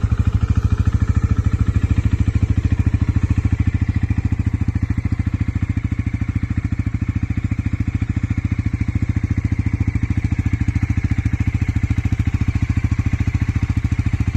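Bajaj Pulsar NS400Z's single-cylinder engine idling steadily through its stock exhaust, an even, rapid beat.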